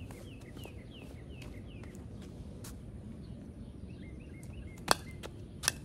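A bird chirping in a quick series of short falling notes, about three or four a second, fading after the first two seconds. Near the end come two sharp clicks about a second apart, the loudest sounds here.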